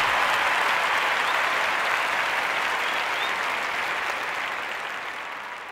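Crowd applauding, a dense even clatter of clapping that fades out over the last second or two.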